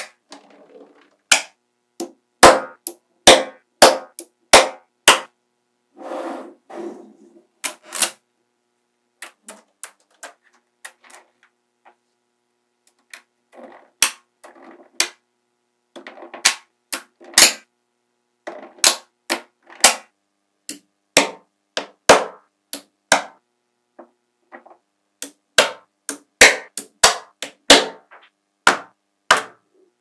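Small magnetic balls snapping together in sharp clicks as strips of them are laid onto rows and joined. The clicks come irregularly, sometimes several a second, with a few short rattling clatters and brief pauses in between.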